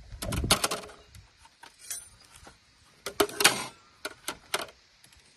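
Kitchen tools clinking and knocking as they are handled, in four short clusters of sharp clicks.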